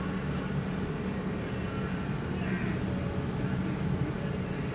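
Crows cawing, with one short harsh call about two and a half seconds in, over a steady low hum.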